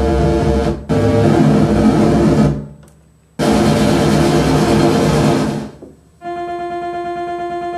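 Keyboard synthesizer played through a hand-built circuit-bent noise box, giving three loud, gritty, distorted chord blasts of a second or two each that cut off sharply. About six seconds in, a quieter steady pitched drone with a fast, even flutter takes over as a knob on the noise box is turned.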